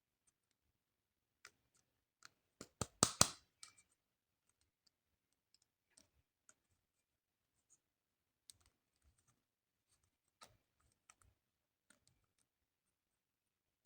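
Small plastic toy pieces and packaging being handled: sharp clicks and taps, with a quick run of louder clicks about three seconds in, then scattered faint ticks.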